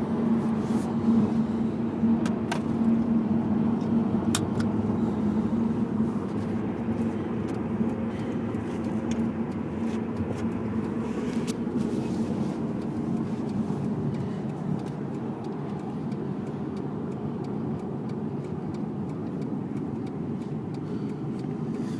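Steady low rumble of road and engine noise heard from inside a moving car, with a few faint clicks.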